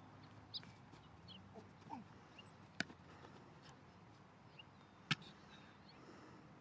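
Two sharp slaps about two seconds apart, a football smacking into a receiver's hands, over a faint outdoor background with small bird chirps.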